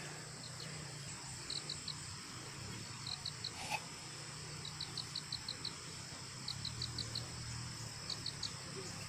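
Insects chirping: short high chirps in quick groups of three to five, repeating about every second and a half, over a steady high-pitched insect drone. A single faint knock sounds about a third of the way in.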